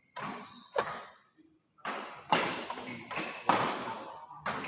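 Badminton rackets striking the shuttlecock in a rally, four sharp hits about a second and a half apart, echoing in the hall.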